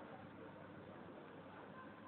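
Faint, steady street noise heard from above: a low hum of traffic and distant voices.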